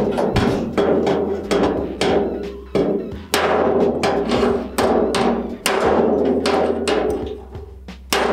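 Hammer strikes on thin copper sheet metal, folding over the top edge of a handmade copper sink. The strikes come about once a second, each sharp and ringing briefly.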